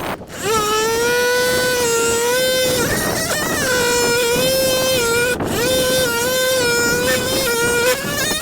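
Handheld electric drill motor running in long steady pulls, its whine rising as it spins up about half a second in and sagging and recovering in speed now and then. There are two brief breaks, one near the start and one about five seconds in.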